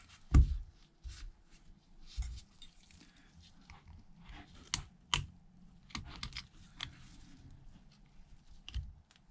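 Light clicks and taps of a phone housing and small repair tools being handled on a workbench, with a louder knock about half a second in and a few sharper clicks about halfway through.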